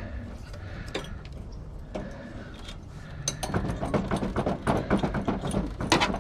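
Metal tools and parts being handled: a few scattered clicks, then from about three seconds in a busy run of rapid metallic clicking and rattling.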